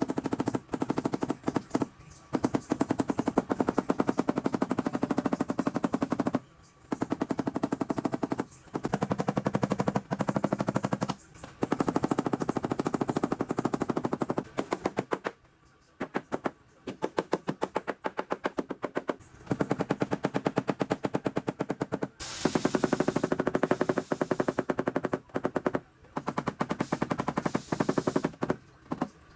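Runs of rapid, sharp taps on the sheet metal of a pickup bedside, stopping and starting every few seconds: a paintless dent repair hammer and knockdown tool tapping down high spots while the dent is finished.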